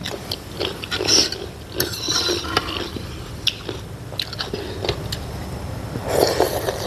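Close-miked eating: wet chewing of a chicken momo, a few light clicks of a metal spoon against the soup bowl, and a louder slurp of pork thukpa broth from the spoon near the end.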